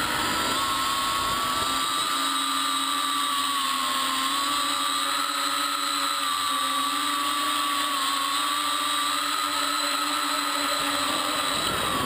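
An X525 quadcopter's four brushless motors spinning 3-blade propellers, heard from the frame-mounted camera: a steady high whine that wavers slightly in pitch as the craft comes down low to land.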